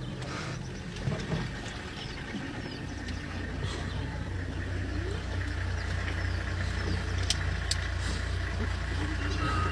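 Vehicle engine idling, a steady low hum that grows slightly louder, with a few faint short chirps high above it.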